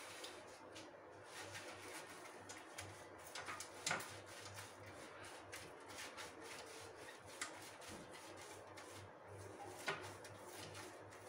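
Faint swishing of a silicone pastry brush spreading oil over a serving tray, with light taps, the clearest about four seconds in and near the end.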